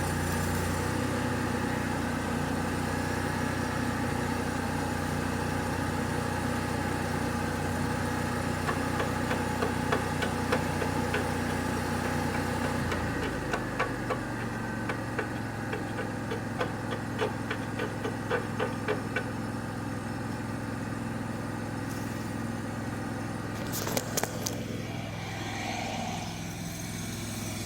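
An engine running steadily drops to a lower idle about halfway through. Over it there is a run of light, quick taps in the middle and a few sharp knocks near the end.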